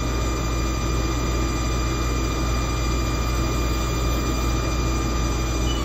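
Haas TL-1 CNC lathe running with its spindle turning, a steady high-pitched whine over a low hum.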